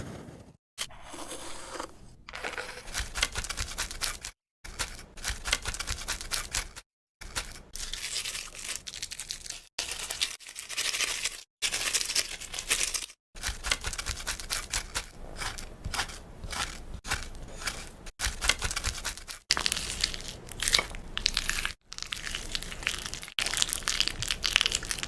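Makeup products being crushed: dense crackling and crunching, in a string of short segments each cut off by a sudden brief silence.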